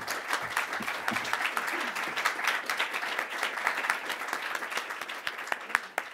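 Audience applauding, a dense patter of many hands clapping that starts to die away near the end.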